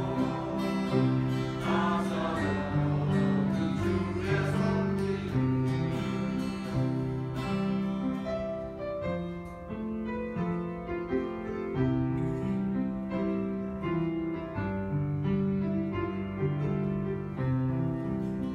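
A hymn played on a strummed acoustic guitar with harmonicas carrying the melody. Voices are singing along in the first few seconds.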